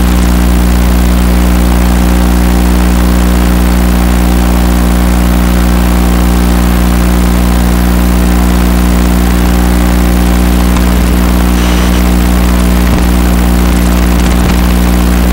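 A loud, steady, unchanging hum from the grounded FPV quadcopter: a stack of even tones over a hiss.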